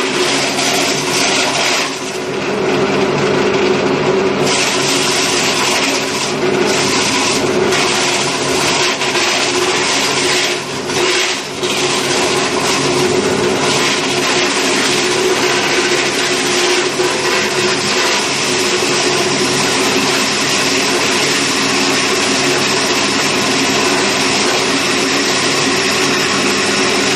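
YNN belt-driven electric chaff cutter running steadily as thick, mature napier grass stalks are fed in, its sharp blades shredding them continuously over a steady machine hum. The chopping noise dips briefly about two seconds in and again around ten to eleven seconds, between feeds.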